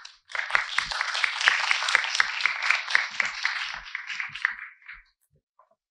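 Applause from a seated audience and panel, many hands clapping together, which fades away shortly before the end.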